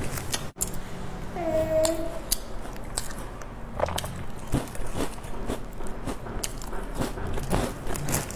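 Crunchy bites and chewing of a crisp packaged biscuit, with crinkling of its plastic wrapper as it is handled.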